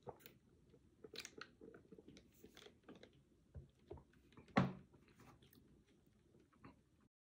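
Mouth sounds of drinking and small clicks from a plastic soda cup with ice, then the cup set down on a wooden table with a knock about four and a half seconds in.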